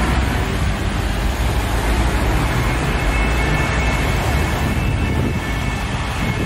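Steady noise of road traffic passing on a busy street.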